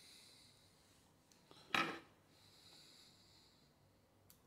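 Quiet hand-work at a fly-tying vise: a short scratchy rub about two seconds in, faint breathing, and a light click near the end as scissors close on the floss.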